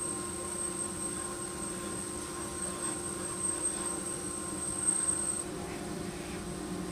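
Steady droning hum in the shop, with a few short faint scrapes of a small brass hand plane shaving the end grain of walnut, about halfway through and again near the end.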